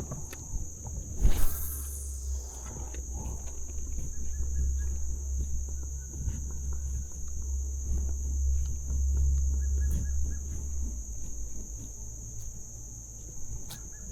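A steady, high-pitched chorus of crickets and other insects, under a low rumble that fades about eleven seconds in. A single sharp knock comes just over a second in.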